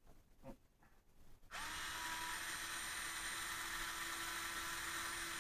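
A few faint clicks, then about one and a half seconds in a Black+Decker 3.6-volt cordless screwdriver starts and runs at a steady speed with an even whine, spinning a 5.5 mm nut driver to run a wheel nut back onto an RC car.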